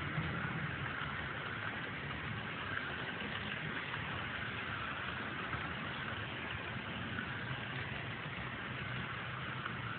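HO-scale model freight train running past on its track: a steady rolling rumble of the cars' wheels on the rails along with the locomotive's motor.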